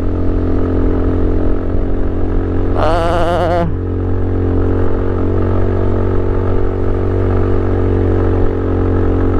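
Motorstar Easyride 150N scooter's GY6-type 150cc single-cylinder engine running hard at a steady, unchanging pitch while pulling up a very steep climb. A brief wavering voice is heard about three seconds in.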